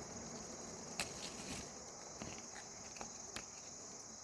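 Faint, steady high-pitched chorus of insects such as crickets, with a few light clicks about one, two and three seconds in.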